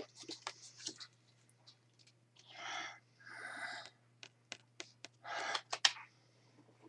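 Close-up handling noise from a person signing and holding a flash card: scattered soft clicks and rustles, with several breathy exhalations, over a low steady hum.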